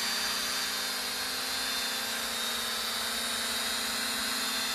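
Z908 Pro mini quadcopter hovering low, its four propellers giving a steady hum with a high whine.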